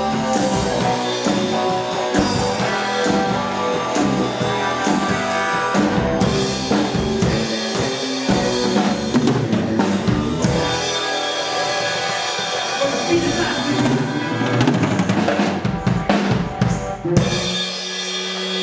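Rock band playing live: electric guitar and a full drum kit with cymbals and snare, driving to the end of a song. A little before the end the drums stop and a chord is left ringing.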